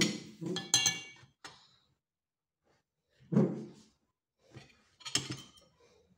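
Metal spoon and fork clinking and scraping against a ceramic plate while eating, a few separate clinks spread out, one with a brief ring.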